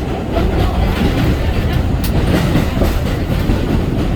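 New York City subway train running at speed through a tunnel, heard from inside a car: a steady loud rumble with wheels clattering over the rails and a sharp click about two seconds in.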